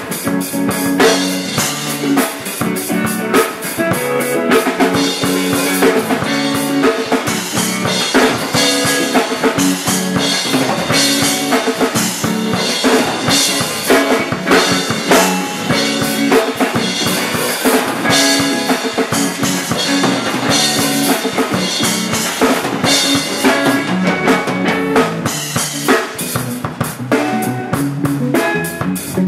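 Acoustic drum kit played in a busy improvised groove, with bass drum, snare and cymbals struck in quick succession.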